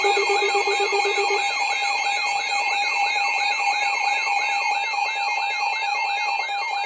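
Several electronic alert alarms sounding together: a fast yelping siren tone that sweeps up and down about three times a second, over a warbling high tone and steady beeping tones. A low pulsing tone among them stops about a second and a half in.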